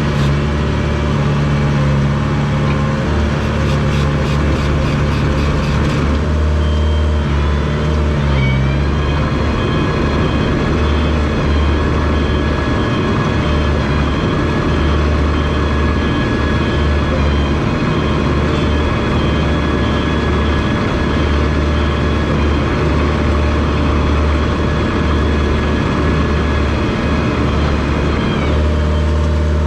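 Komatsu D21 bulldozer's diesel engine running with a deep rumble. About eight seconds in it rises to a higher, steady pitch with a whine, holds there, and drops back near the end.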